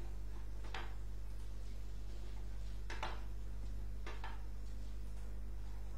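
Steady low electrical hum on the microphone line, with a few faint short ticks or rustles about a second in, around three seconds in, and just after four seconds.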